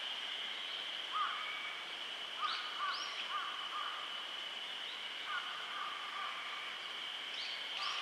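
Outdoor nature ambience: a steady high-pitched drone under clusters of short, repeated animal calls. Twice, a pair of quick rising high notes cuts through.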